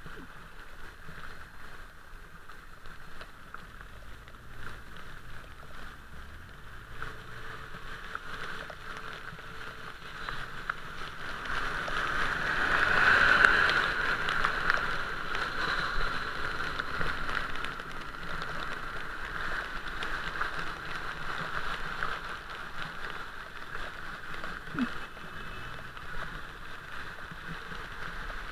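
Bicycle tyres rolling through standing floodwater on a wet street: a steady splashing hiss. It swells loudest about halfway through as the wheel throws up spray.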